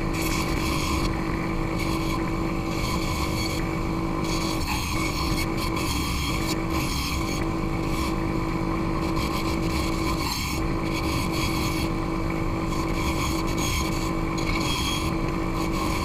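Delta bandsaw running with a steady hum, its wide blade cutting through a stack of six brad-nailed plywood sheets. The steady tone breaks off briefly a few times.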